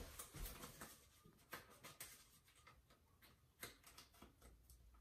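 Faint rustling and soft ticks of blue painter's tape being handled and pressed into a stainless steel sink, with a few separate clicks spread across the few seconds.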